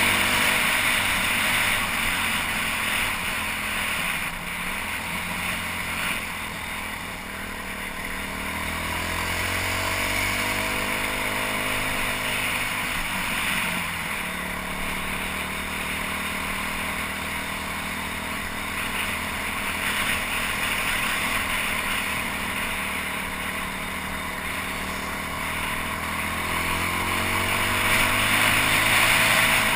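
BaltMotors Motard 200's single-cylinder 200 cc engine under way on the road, its pitch climbing and falling with throttle and gear changes, with a sharp drop about 14 seconds in. Rushing wind noise runs over the engine on the bike-mounted camera's microphone.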